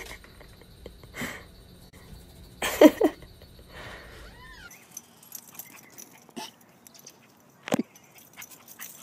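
A dog's short whines, the loudest about three seconds in, with fainter higher ones just after. Near the end, a single sharp knock.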